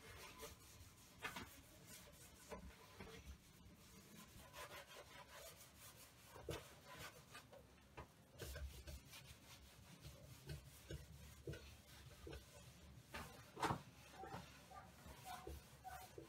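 Faint rubbing of a cloth working beeswax into a varnished pine tabletop, with a few light taps scattered through it; one tap stands out a little past halfway.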